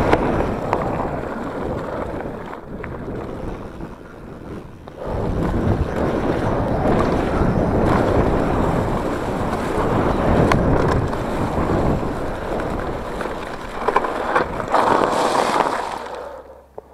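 Wind rushing over a handlebar-mounted camera's microphone, mixed with the tyre noise and knocks of a mountain bike riding fast down a dirt and grass trail. It eases off about four seconds in, picks up again, and falls away near the end.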